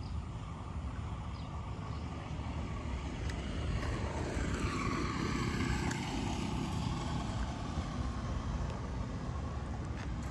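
A vehicle passing on the road, swelling and then fading about halfway through, over a steady low rumble.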